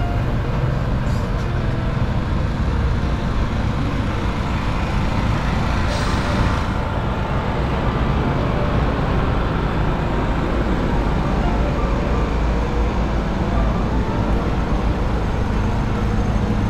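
Steady city street noise: a rumble of engines and traffic with a low hum, and a short hiss about six seconds in.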